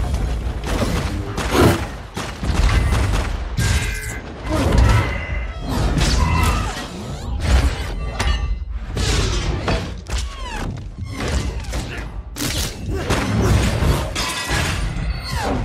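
Action-film battle sound effects: a rapid run of crashes, thuds and metallic smashing with shattering debris, over music and a low rumble.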